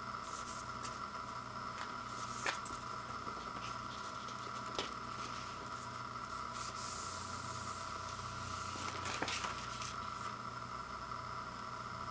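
Paper inner sleeve rustling and scraping as a vinyl LP is slid out of it, with a few light taps and a stretch of sliding hiss near the end. A steady background hum runs underneath.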